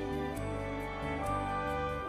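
Instrumental music: held notes over a low bass line, with a light steady beat of soft ticks.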